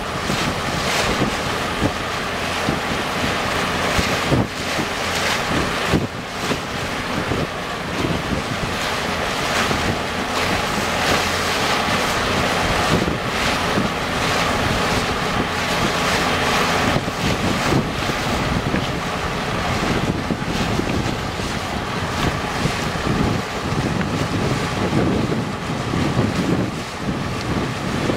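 Wind buffeting the microphone over water rushing and splashing around a float being towed through the sea, with a boat engine running steadily underneath.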